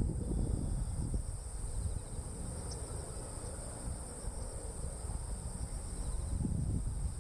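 Insects chirring steadily at a high pitch, over an uneven low rumble.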